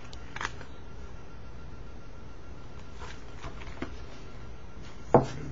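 A comic book being handled and its pages turned: a few soft rustles and clicks, then a sharp thump about five seconds in.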